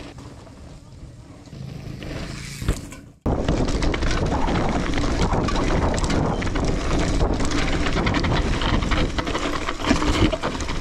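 Mountain bike riding fast down a rough, rocky trail: a loud rush of wind on the microphone mixed with the bike rattling and clattering over rocks. It starts abruptly about three seconds in, after a quieter stretch with a faint low hum.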